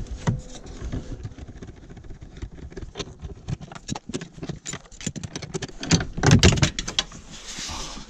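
Hand-work on a car's interior: irregular clicks, knocks and rattles of a ratchet and plastic trim being handled around a seat-belt anchor, with a louder cluster of knocks about six seconds in.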